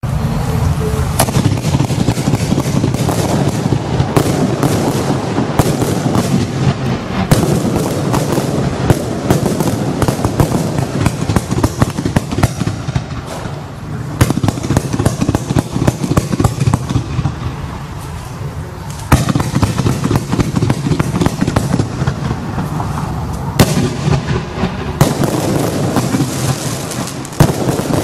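A 150-shot firework cake (Absolute Fireworks Grand Prix) firing in a continuous rapid barrage of launches and aerial bursts, many shots a second. There is a short lull about two thirds of the way through, and a few louder single bangs.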